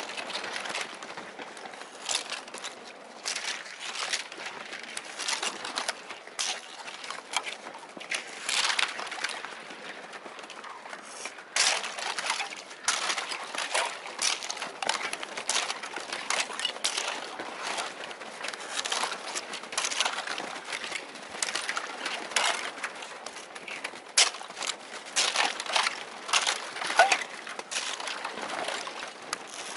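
Thin first ice breaking, cracking and crunching against the hull of an inflatable kayak and its paddle as the kayak is pushed through the ice sheet: a dense, irregular run of sharp crackles and snaps.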